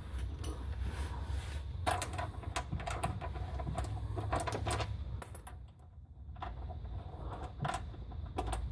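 Irregular metallic clinks and rattles of bolts and hand tools being handled while a jacking rail is bolted to the car's underside. They come in two clusters, with a short lull between them.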